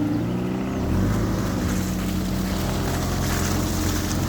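Small boat's motor running steadily, its tone and level stepping up about a second in as it picks up speed.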